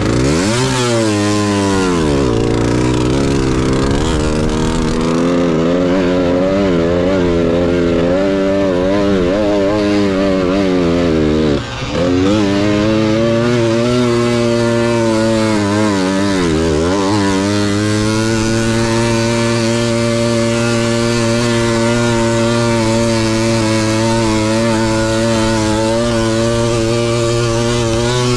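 Tuned Balkan 50 two-stroke 50cc moped engine racing, heard from on board: revving hard with its pitch rising and falling between throttle changes. It dips briefly near the start, about twelve seconds in with a short drop in loudness, and again about seventeen seconds in, then holds a steady high pitch to the end.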